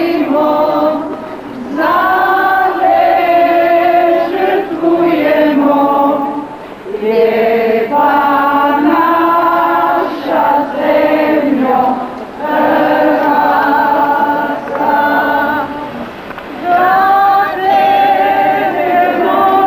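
A group of voices singing a slow song together in held phrases, with short breaks between them.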